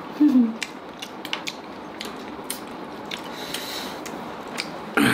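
Close-miked eating sounds: chewing and mouth clicks, with scattered small clicks and a brief hummed "mm" near the start. A louder click comes near the end.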